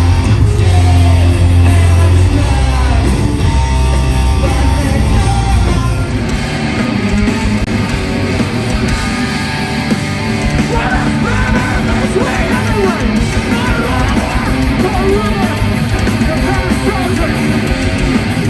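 Loud live heavy metal band playing, with yelled vocals. About six seconds in, the heavy sustained bass notes drop away and the music turns busier.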